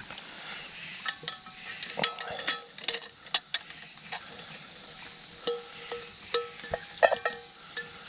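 Small metal objects clinking and knocking together, about a dozen times in irregular clusters. Several knocks ring briefly with a clear metallic tone.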